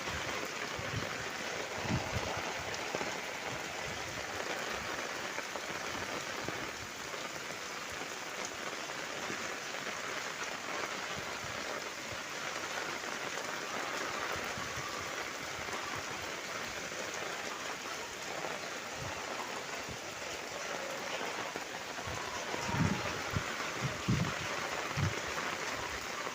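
Steady rain falling on surfaces, an even hiss, with a few short low thuds near the end.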